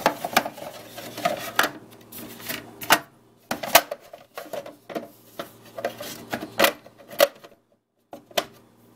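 Irregular clicks and knocks of hard plastic as the Starbucks Barista espresso machine's removable water tank and bottom parts are handled and fitted back, over a low steady hum. The sound drops out for about half a second near the end.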